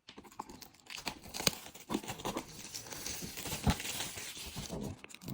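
Foil wrapper of a Pokémon trading card pack crinkling and tearing as it is ripped open, with many sharp crackles.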